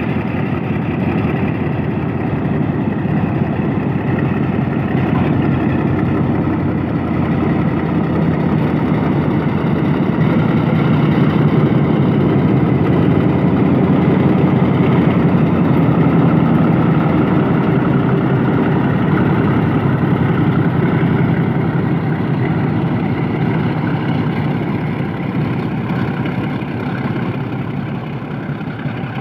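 Diesel locomotive engine running steadily close by, a little louder around the middle and easing slightly near the end.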